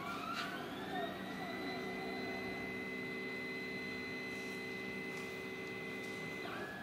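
Stepper motors of a CNC hot-wire foam cutter whining as they drive the wire through a cut in polystyrene. Several tones glide up and down in pitch in the first second or so, then hold steady. Near the end the whine shifts to a lower tone.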